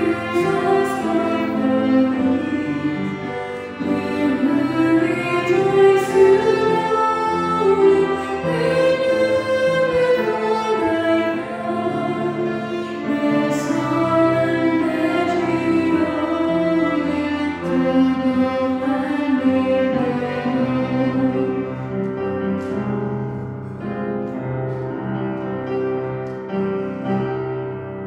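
Female vocal trio singing a slow hymn with sustained instrumental accompaniment.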